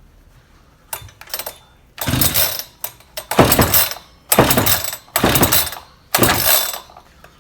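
Echo chainsaw's recoil starter pulled hard five times in a row, the engine cranking over for a compression test with the decompression valve closed. A few light clicks come just before the first pull.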